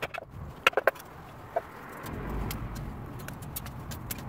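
A few sharp wooden clacks as pieces of split kindling are handled on a wooden chopping block, then a low rumble with scattered sharp crackles from a small wood fire in a metal box stove.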